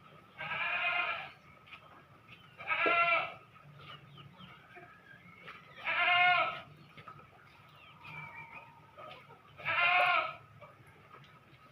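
An animal calling four times, each call a wavering pitched cry of about half a second to a second, repeated every three to four seconds.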